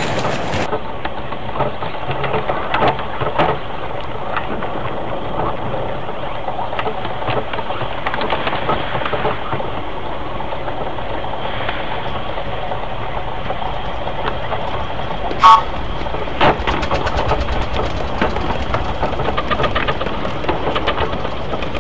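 Miniature steam locomotives of a double-headed train running along the track with a steady rumble and clatter. A short whistle toot comes about fifteen seconds in, and a quick, even rhythm of beats follows near the end.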